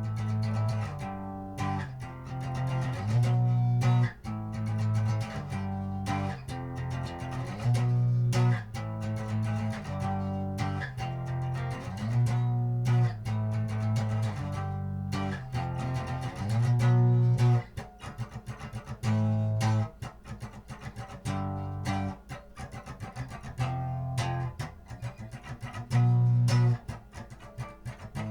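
Background music: guitar-led instrumental with a prominent bass line, playing in repeating phrases that turn sparser about two-thirds of the way through.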